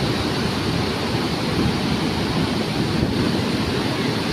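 Floodwater rushing in a steady, unbroken wash of noise, with a low rumble underneath.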